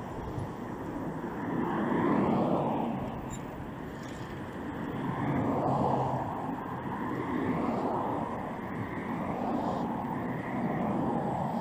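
Street traffic noise heard from a moving bicycle: a steady rush that swells and fades every couple of seconds.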